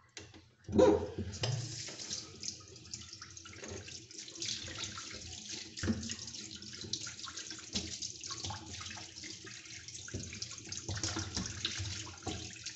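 Tap water running and splashing over parts of a Fluval 306 canister filter as they are rinsed in a sink, with a few knocks, the loudest about a second in.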